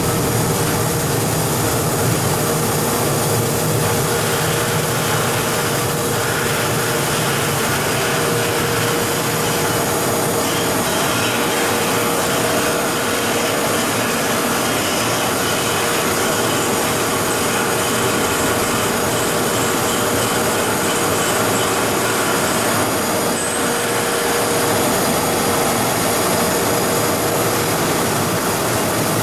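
YDN-85 plastic film recycling machine running: a steady, loud industrial machine noise with a constant whine-like tone through it.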